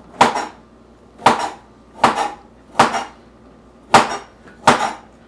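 Kitchen knife chopping through a carrot onto a plastic cutting board: six sharp knocks at an even, unhurried pace, a little under one a second.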